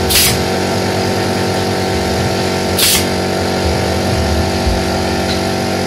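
A steady engine-like drone that holds one pitch throughout, with two brief noisy bursts, one right at the start and one about three seconds in.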